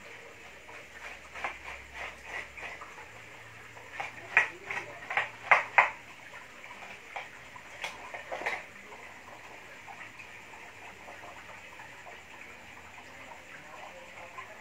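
A run of short, sharp taps and clatters, loudest in a quick cluster about four to six seconds in and a couple more near eight seconds, with faint splashy water-like noise between.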